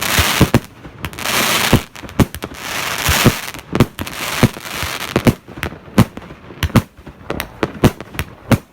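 Consumer firework battery (cake) of 200 shots firing: a fast run of sharp bangs, with spells of crackling hiss between them in the first few seconds.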